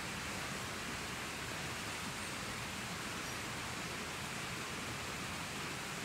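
Steady, even background hiss with no distinct sounds in it.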